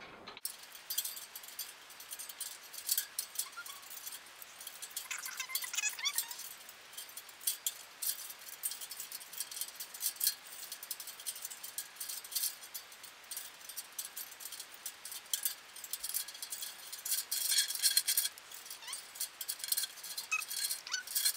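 A string of clear mini Christmas lights being threaded through the bars of a wire birdcage: the bulbs and wire tick, clink and rattle against the cage in small irregular clusters, busiest about halfway through and again near the end.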